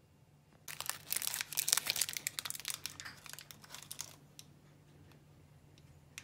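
Clear plastic candy wrapper crinkling and crackling as a chocolate-coated licorice chili ball is unwrapped by hand. The crinkling lasts about three seconds, starting just under a second in, then dies away.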